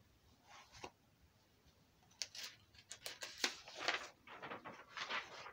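Paper pages of a book rustling and crinkling as they are handled, a short rustle about half a second in, then from about two seconds on a longer run of rustles with small sharp ticks.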